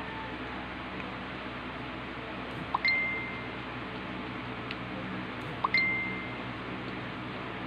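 Two identical short dings, about three seconds apart, each a quick upward chirp leading into a steady high ping that fades within a second, over a steady hiss.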